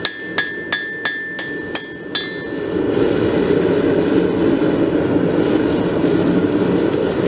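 Hand hammer striking hot 5160 steel on a 200 lb anvil, about three ringing blows a second, stopping a little over two seconds in. A louder steady rushing noise then takes over.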